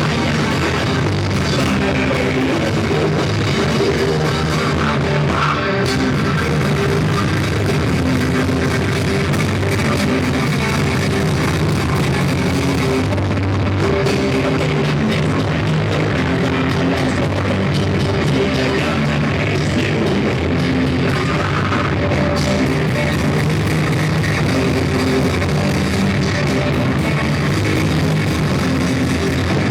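Live rock band playing, with distorted electric guitar and a drum kit, recorded with heavily compressed, poor-quality sound.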